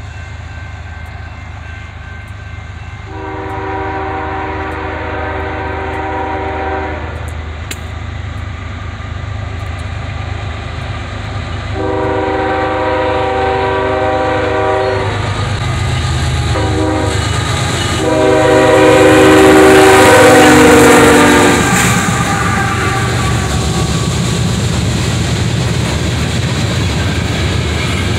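Diesel freight locomotive horn sounding a chord of several tones in the grade-crossing pattern (long, long, short, long) as the train approaches, over a low engine rumble. The last long blast is the loudest as the lead locomotives pass. After it, loaded coal hoppers roll by with steady wheel-on-rail noise.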